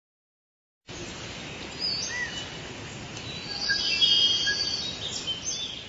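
Jungle ambience of birds chirping and whistling over a steady hiss, starting about a second in and fading out near the end.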